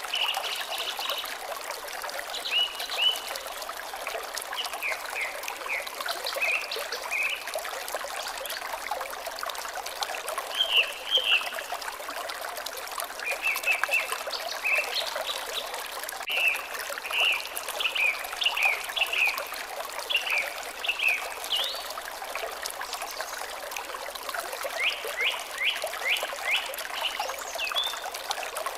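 Water trickling steadily, with short runs of quick high bird chirps every few seconds.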